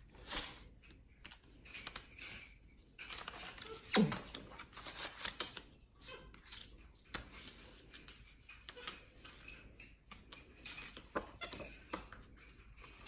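A marker scratching and scribbling across loose sheets of paper as a capuchin monkey draws, with paper rustling and small clicks against a hard tabletop. A short falling squeak about four seconds in is the loudest sound.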